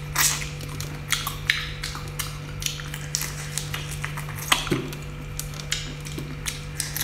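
Close-up eating of soy-marinated shrimp: shells cracking and crackling, with wet sucking and lip smacks in quick, irregular clicks, over a steady low hum.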